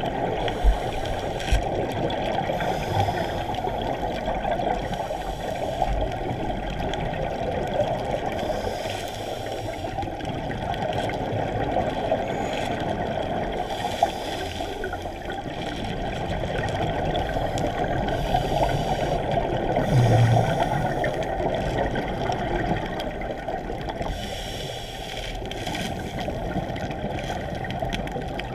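Scuba diving underwater, heard through a GoPro's waterproof housing: a muffled, steady rush of water with scuba regulator exhaust bubbles bursting out every few seconds. A brief low hum about twenty seconds in is the loudest moment.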